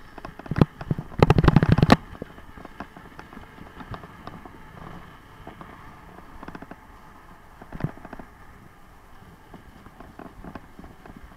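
Bicycle rattling in a quick, loud burst of clicks as it jolts over a bump in the road about a second in, then light scattered ticks and clicks as it rolls on downhill, with one sharper knock later.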